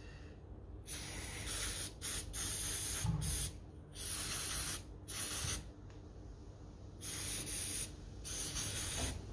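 Aerosol brake and parts cleaner sprayed in a series of short hissing bursts, eight or nine of them, starting about a second in. It is flushing the last bits of old grease out of a steering box ball nut.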